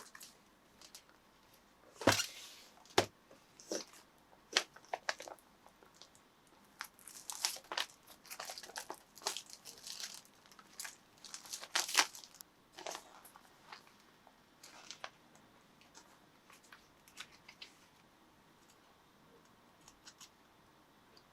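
Packaging being handled and opened: crinkling and tearing of wrapping with sharp clicks and taps, busy for the first dozen seconds and then thinning to occasional light clicks.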